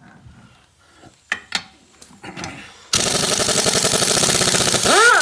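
A pneumatic impact wrench hammering for about two seconds at a stubborn, rusted fastener in a fast, even rattle, starting about three seconds in. A few light tool knocks come before it.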